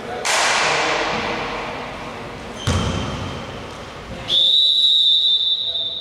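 A sharp bang that echoes through the sports hall and fades over about two seconds, a thud a little before the three-second mark, then a long, steady, high referee's whistle blast starting a little after four seconds in.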